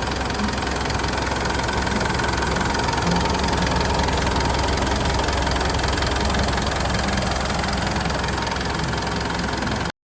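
Mitsubishi Pajero Sport 2.5 turbodiesel engine idling steadily, with its even diesel clatter, then cutting off abruptly near the end. The engine has a blown head gasket that is pushing gases into the coolant.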